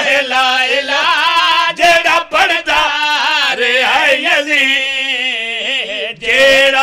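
A man's voice chanting a Punjabi religious recitation in a sung, melodic style, with long wavering held notes.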